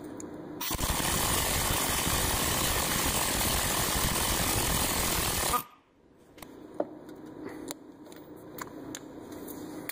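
Impact wrench hammering for about five seconds, driving the forcing screw of a crankshaft pulley puller to draw the press-fit pulley off, then cutting off abruptly. A few light clicks and knocks follow.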